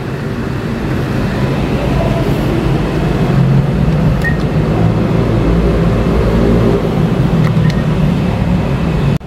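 Loud, steady low rumble that builds over the first few seconds and cuts off suddenly near the end. Two short electronic beeps from the ATM's touchscreen come about four seconds and seven and a half seconds in.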